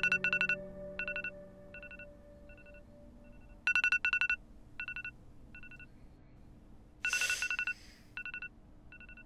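Smartphone alarm going off: repeating bursts of quick, high two-pitch beeps, some bursts louder than others. A brief noise cuts across the beeps about seven seconds in.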